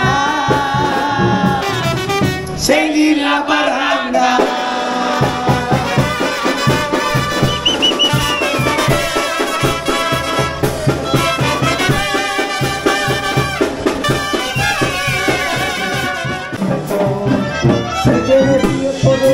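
Live Mexican banda brass band playing: trumpets and trombones over a sousaphone bass line and a steady drum beat.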